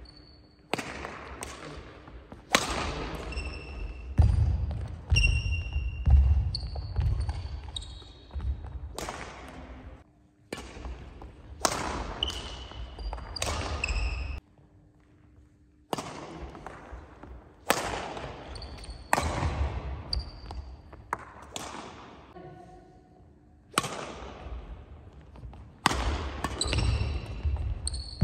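Badminton rally: rackets striking a shuttlecock again and again, with sneakers squeaking and feet thudding on a wooden sports-hall floor, each hit echoing in the large hall. There is a short lull about halfway through, between points.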